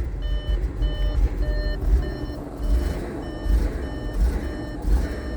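Audi RS5 engine idling roughly, its low rumble surging unevenly, while a short electronic beep repeats about every half second.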